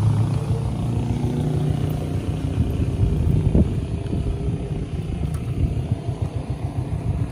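Low rumble of street traffic, with a motorcycle engine running nearby that fades within about the first second.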